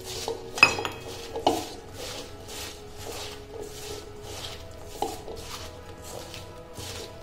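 Hand mixing sliced bitter gourd with salt and water in a stainless steel bowl: wet rubbing and rustling of the slices in strokes about twice a second. A few metallic clinks against the bowl come through, the sharpest less than a second in.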